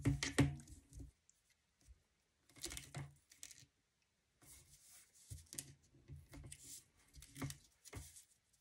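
Adhesive tape being pulled and torn off a roll in several short, scratchy bursts, mixed with the rustle and light taps of cardstock handled on a table; the loudest burst comes right at the start.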